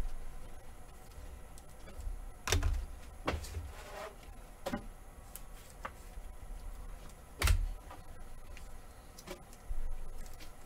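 Hands opening a trading card pack and handling the cards: a few sharp crinkles and knocks, the loudest about two and a half and seven and a half seconds in, over faint rustling.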